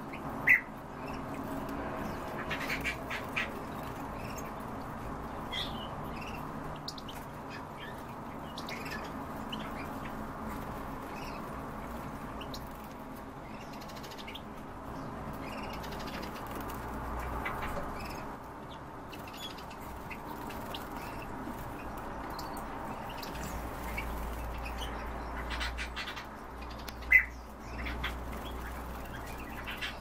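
Small caged songbirds chirping, with short calls scattered throughout and two louder sharp chirps, one about half a second in and one near the end, over a steady low hum.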